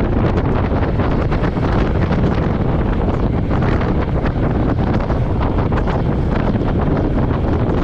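Wind buffeting the action camera's microphone while riding, with the Royal Enfield Meteor 350's single-cylinder engine running steadily underneath.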